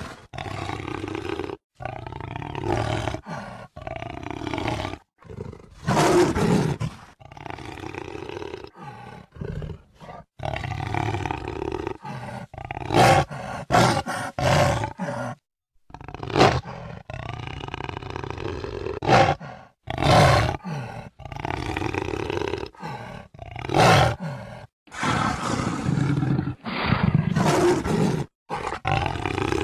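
Jaguar roaring over and over, in a string of spliced recordings that cut in and out abruptly with short silent gaps between them.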